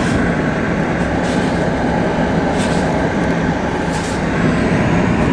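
Chevrolet Silverado idling with its heater fan blowing to defrost frosted windows: a steady rushing noise over a low engine hum.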